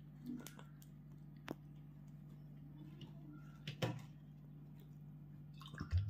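Parrots pecking at and cracking seeds on a mat: scattered small clicks and a few sharper knocks, the loudest just before the end, over a steady low hum.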